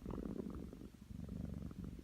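Domestic cat snoring, a low rattling buzz with each breath and a short lull about a second in.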